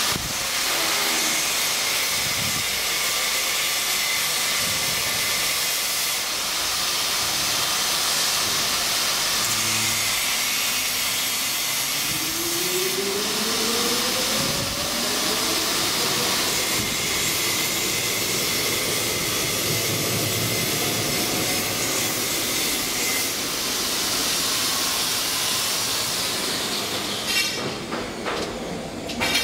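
Traction elevator car travelling in its shaft: a steady rushing hiss of ride and air noise, with a whine that rises in pitch about twelve seconds in. A few clicks and knocks come near the end as the car arrives.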